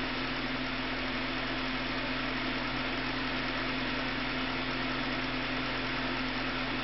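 Steady background hum with an even hiss, unchanging throughout, with no distinct event.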